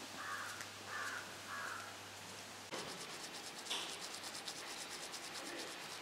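Toothbrush scrubbing teeth in quick back-and-forth strokes, a rasping rub several times a second, starting about three seconds in.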